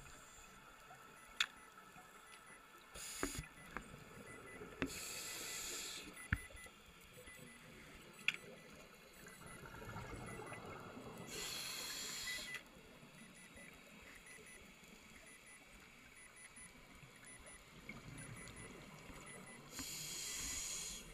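Scuba regulator exhaust bubbles: four hissing bursts of about a second each, spaced several seconds apart like a diver's breaths, with a few sharp clicks in between, heard faintly from underwater.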